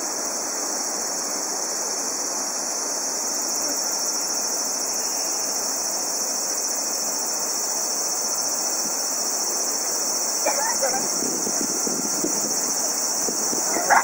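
Steady, high-pitched chorus of insects trilling without a break, over a low even background hum.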